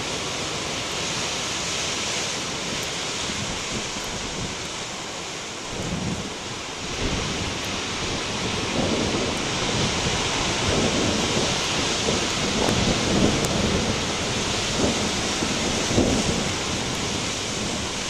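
Heavy storm surf breaking on rocks: a steady rushing wash of foam that swells into a deeper, louder rumble of crashing waves from about six seconds in.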